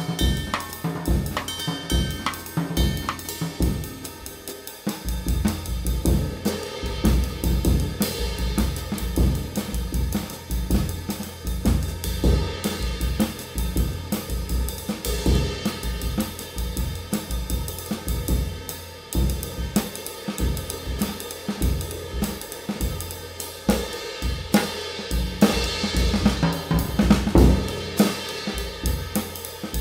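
Drum kit played in a steady beat: bass drum, snare and cymbals or hi-hat, with the low drum hits briefly dropping out about four seconds in.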